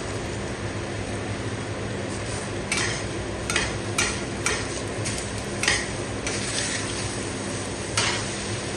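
Metal spatula scraping and knocking against a stainless steel frying pan as flat rice noodles and egg are stir-fried, over a steady frying hiss. The strokes start a few seconds in and come about one or two a second.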